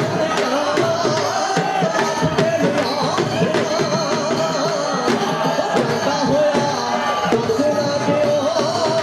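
Bhangra music played loud for the dancers: dhol drum beats driving under a wavering melody line.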